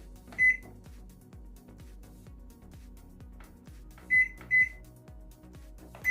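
Microwave oven control-panel beeps: a single short high beep, two in quick succession a few seconds later, and another at the end, over steady background music.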